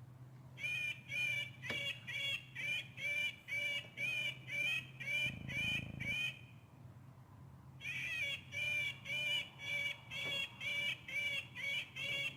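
A bird's call repeated in a fast even series, about three notes a second, in two long runs with a pause of a second or two between them, over a faint steady low hum.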